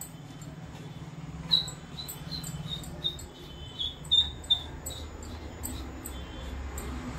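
A cotton bud rubbing and scraping soot off a brass plate, with a run of short, high squeaks between about one and a half and four and a half seconds in.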